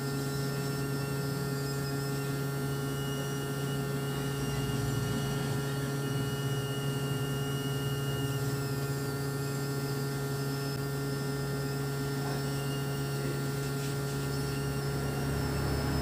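Hot air rework gun blowing steadily, a constant low hum with a light hiss, heating the new charging jack's solder joints from below.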